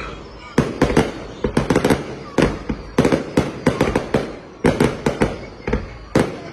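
Aerial fireworks bursting overhead in a steady stream of sharp bangs, coming in quick clusters of several at a time about once a second.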